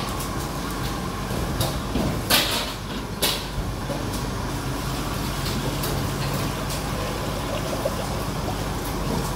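Clanking of a large aluminium stockpot and steel bucket handled on a stove: two sharp metal knocks about a second apart, at two and three seconds in, over a steady low rumble.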